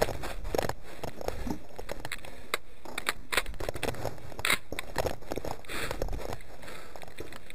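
An AR-style rifle and gear being handled while the shooter walks across sand: scattered light clicks, knocks and rattles, with no shots fired.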